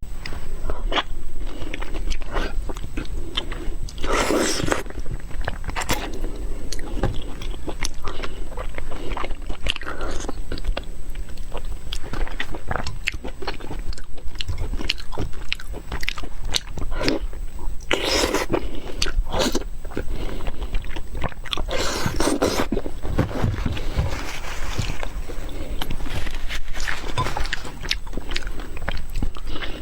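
Close-miked eating: a person biting and chewing food with wet mouth clicks and smacks throughout, and a few louder, longer mouth noises about 4, 18 and 22 seconds in.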